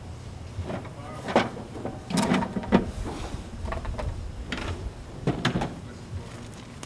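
Red Hilti hard plastic tool case being shut and moved: a few separate knocks and clicks from the lid and case, with a duller thud about two seconds in and more clacks as the case is set down on asphalt.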